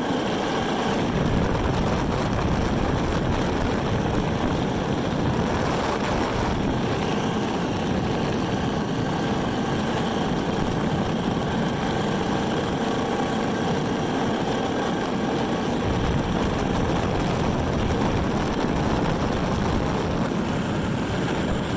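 Jet boat's 4.8 L LS V8 and Berkeley jet drive running steadily under way on the river, a continuous engine drone mixed with an even rushing noise.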